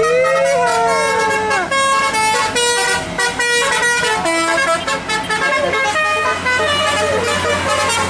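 Tour bus's telolet multi-tone musical air horn playing a fast melody of short stepped notes, with a few gliding notes near the start. A bus engine runs underneath.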